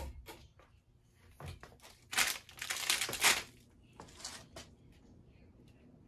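Handling noise as the fan's control is worked and the person moves off: a few sharp clicks, then a loud crinkling rustle lasting about a second, from about two seconds in, then a few fainter clicks. A ceiling fan runs faintly underneath.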